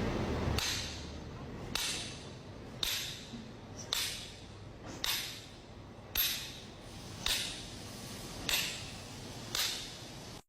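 A regular series of sharp strikes, about nine in all, roughly one a second, each dying away quickly.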